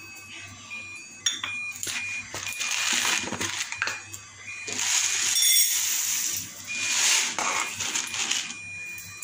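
Dry split lentils rattling and pattering as they are poured from a steel cup into a glass bowl, in three pours of a second or two each.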